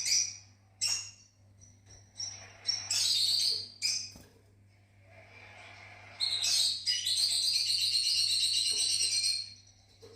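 Fischer's lovebirds chirping in short high bursts, then one long run of rapid chattering from about six to nine and a half seconds in, over a faint steady low hum.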